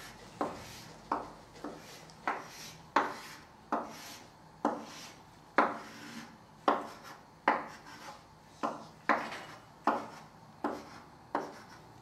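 Chalk drawing straight lines on a blackboard: a string of short, sharp strokes, each starting with a tap and tailing off in a scrape, about one every two-thirds of a second.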